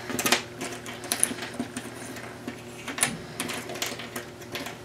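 Jigsaw puzzle pieces clicking and tapping on a tabletop as they are handled and sorted, with a strong tap just after the start and another about three seconds in.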